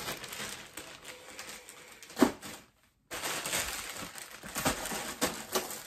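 Thin clear plastic bags crinkling and crackling as they are handled, with one sharp, louder crackle about two seconds in. The rustling drops out briefly around three seconds, then resumes.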